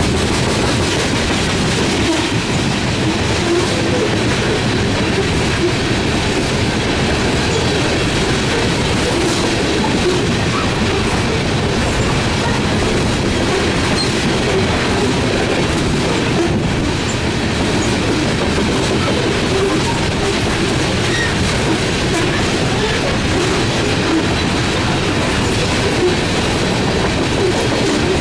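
Long train's cars rolling past at speed: a steady loud rumble of steel wheels on rail with clickety-clack over the rail joints.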